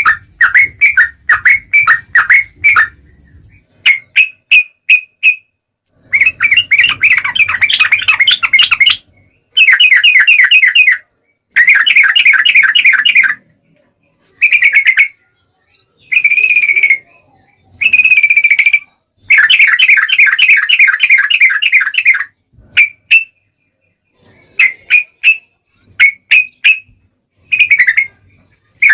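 Yellow-vented bulbul (trucukan) calling: loud, quick runs of chattering notes in bursts of one to three seconds, broken by short pauses and a few single clipped notes.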